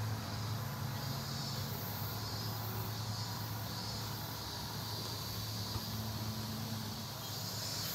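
Outdoor background: a steady low hum under an even hiss, with faint high-pitched chirping pulses about once a second.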